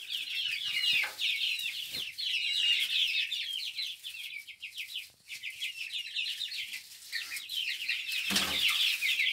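A flock of month-old chicks peeping continuously, many short high cheeps overlapping, with a brief lull about five seconds in. Two light knocks come about one and two seconds in.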